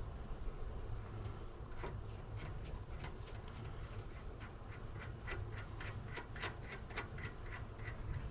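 Hand ratchet wrench clicking as a nut is run onto a bolt: a few scattered clicks, then a quick run of about four to five clicks a second from about halfway through, over a steady low rumble.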